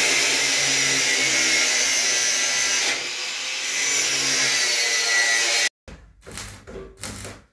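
Electric power tool cutting steel flat strip, a steady grinding hiss that dips about three seconds in and picks up again, then cuts off suddenly about five and a half seconds in, followed by short broken sounds.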